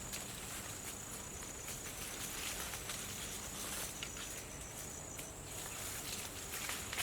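An insect trilling, a thin high-pitched tone that runs for a second or two at a time with short breaks, over faint rustling and light clicks.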